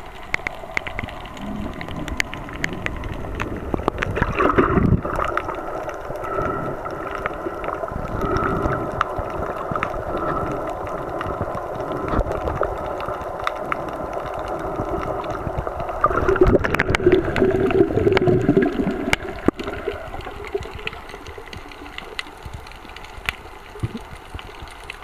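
Underwater sound through a snorkeler's camera: a steady droning hum over water noise, swelling louder about four seconds in and again for a few seconds past the middle, with scattered faint clicks.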